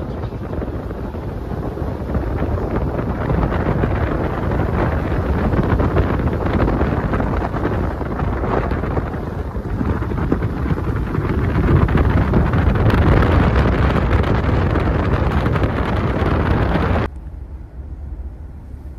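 Wind rushing over a phone microphone: a loud, steady buffeting roar that swells toward the middle. Near the end it cuts off abruptly and gives way to a much quieter low hum inside a car.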